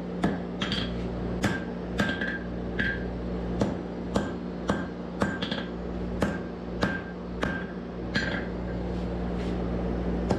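Blacksmith's hand hammer striking a glowing san mai billet of 304 stainless and 52100 carbon steel on an anvil, about two blows a second, each with a short metallic ring.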